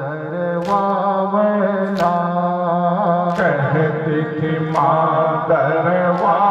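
Group of men chanting a Muharram noha (lament) in long, held melodic lines, the pitch shifting about halfway through. Sharp rhythmic slaps, mourners' chest-beating (matam), mark the beat about every second and a half.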